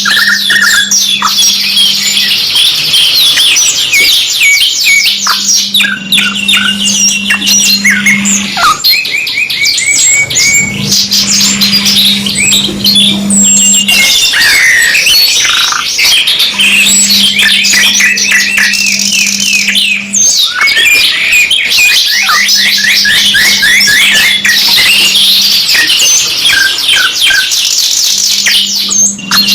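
Domestic canaries singing continuously: two birds' songs overlapping in fast rolling trills and chirps. A low steady hum comes and goes every few seconds underneath.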